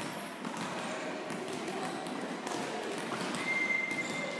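Sports-hall ambience from several volleyball courts in play: indistinct voices and scattered thuds of volleyballs being hit and bounced, echoing in the hall. A high, steady tone about a second long comes near the end.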